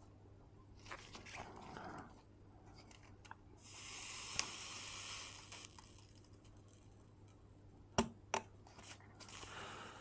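Faint desoldering work with a soldering iron and desoldering wick on a circuit board: a soft hiss lasting about two seconds near the middle, and a few sharp clicks of tools against the board, two close together near the end, over a low steady hum.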